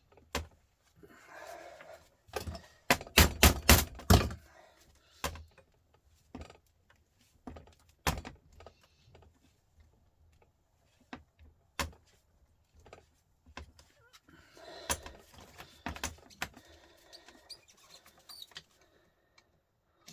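Metal knocks and scraping from tools working on the parts of a Volvo truck starter motor being taken apart. There are scattered single knocks, and a quick run of about six heavy knocks about three seconds in.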